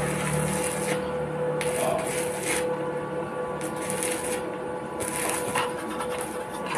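Electric arc welding on a metal railing: the arc crackles and sizzles in spells about a second long, starting and stopping several times, over a steady hum.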